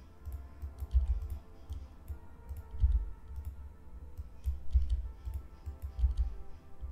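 Computer keyboard keys and mouse clicks tapping in scattered single presses over soft background music, with a few dull low thumps.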